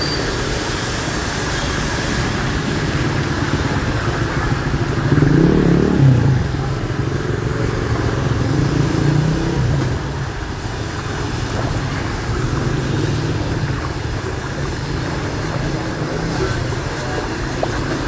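Motorbike and car engines running steadily in street traffic on a flooded road, with one vehicle passing louder about five to six seconds in.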